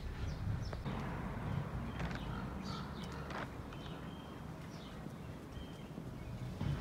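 Outdoor ambience: small birds chirping faintly and intermittently over a low steady rumble, with a few light clicks.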